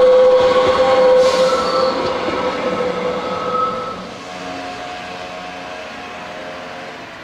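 Metre-gauge train's wheels squealing as it runs through a curve: a loud, steady squeal tone that fades about four seconds in, leaving fainter squeal tones and rolling noise.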